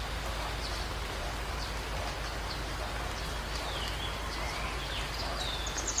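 Outdoor ambience: a steady hiss with faint, scattered small-bird chirps and a few short descending whistles, then a quick run of high chirps near the end.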